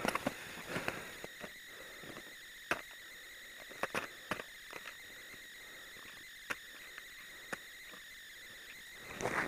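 Ice axes and crampons biting into snow and ice on a climb: scattered sharp knocks and crunches at irregular intervals, a cluster near the start, sparse through the middle and a burst near the end, over a faint steady high tone.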